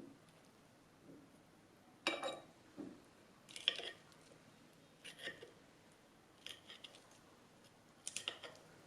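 Crisp crunching and rustling of raw shredded cabbage salad, in about six short, irregular bursts.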